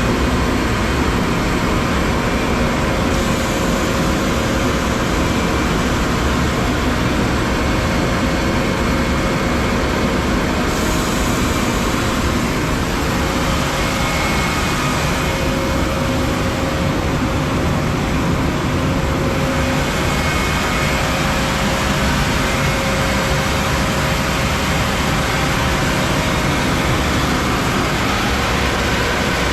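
Industrial two-head 36-inch wide belt sander running, a loud steady noise with a few faint steady hums in it.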